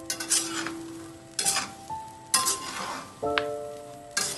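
A metal spatula stirring peanuts being dry-roasted in salt in a frying pan, with a dry scraping, rattling stroke roughly once a second.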